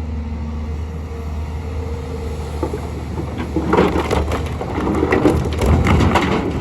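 Excavator's diesel engine running steadily. From about halfway in, stone pours from the bucket into a truck bed in a long run of clattering, crashing impacts.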